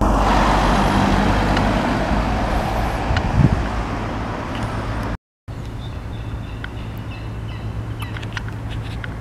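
A car passing close by on the road, its tyre and engine noise fading away over the first few seconds, with a brief knock about three and a half seconds in. After a cut about five seconds in, only a quieter steady low hum of outdoor background remains, with faint ticks.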